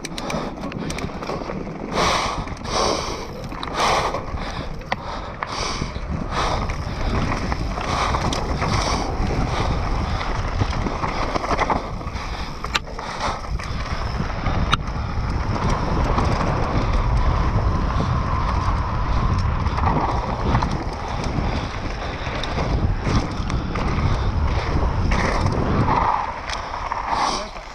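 Wind buffeting the microphone and tyres rolling over a dirt trail as a mountain bike descends at speed, with knocks and rattles from the bike over bumps. The noise drops sharply near the end as the bike slows.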